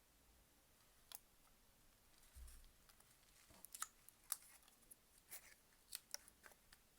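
Faint, irregular light clicks and taps of small phone parts and a hand tool being handled and pressed into place on a smartphone's back cover. There is a single click about a second in, and the clicks come more often in the second half.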